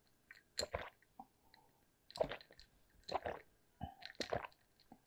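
A person gulping cola from a glass: a series of swallows, about one a second.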